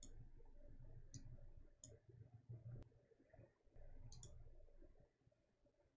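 Faint computer mouse clicks, about five of them spread unevenly, a quick pair among them, over low room noise.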